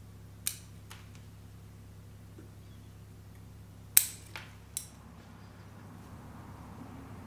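Steel bonsai scissors snipping twigs on a shinpaku juniper: sharp cutting clicks, two lighter ones about half a second to a second in, then the loudest about four seconds in, quickly followed by two more.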